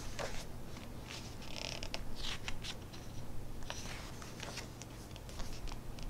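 Pages of a hardback cookbook being turned by hand: several soft paper swishes and rustles, one after another, with a few faint ticks.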